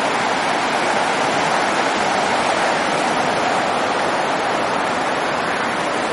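Steady rushing water noise, even and unbroken, with no distinct events.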